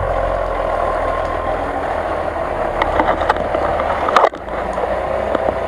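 Lifted Jeep Cherokee off-road truck on large mud tyres, its engine running steadily while it works through deep mud, with a few short clicks. The sound breaks off abruptly for an instant about four seconds in, then resumes.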